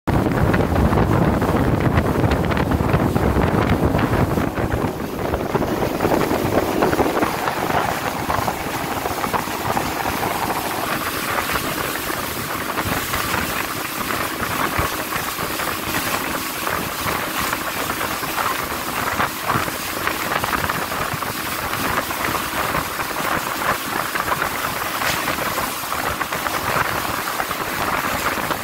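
Wind buffeting the microphone on a moving boat, heaviest in the first several seconds, over the steady rush of water and the hum of the boat's engine.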